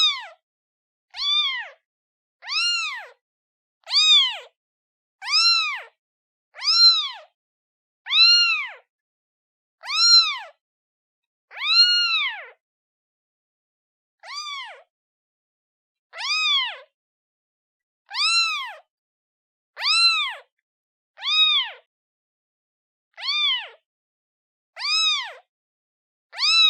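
Newborn kitten meowing for its mother: a steady series of short, high-pitched mews, each rising and falling in pitch, about one every second and a half with silence between.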